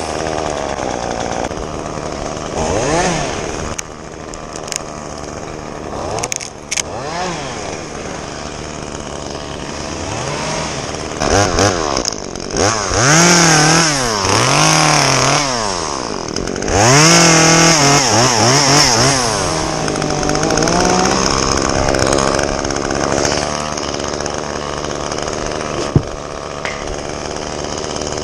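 Chainsaw engine being throttled up and back down again and again as it cuts small branches, dropping to lower steady running between cuts. A single sharp click sounds near the end.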